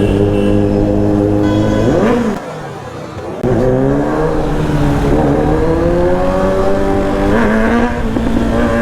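Motorcycle engine and exhaust under load, revs climbing. The throttle is briefly shut for about a second between two and three and a half seconds in. It then comes back sharply and pulls up again, with a shorter dip near the end.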